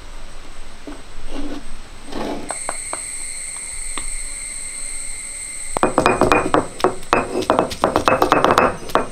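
Ginger and garlic being crushed on a stone grinding slab (ammikallu): from about six seconds in, the heavy stone roller knocks down on the pieces several times a second. Before that come a few soft clatters as the pieces go onto the stone.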